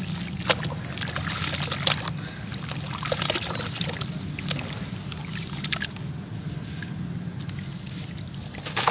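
Hands sloshing and squeezing soaked sand-cement lumps in a basin of muddy water, with splashes, drips and soft wet crumbling. The material is wet through, so it squelches rather than crunches. Just before the end a louder splash and pour comes as a block is lifted out with water running off it.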